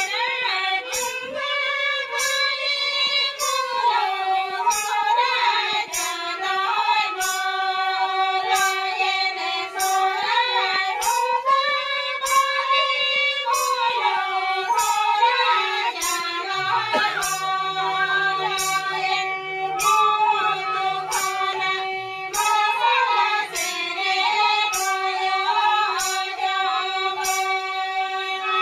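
Santali sohray folk song: a woman sings to a harmonium's steady reedy chords and a bamboo flute, over a regular tapping beat of about one stroke a second.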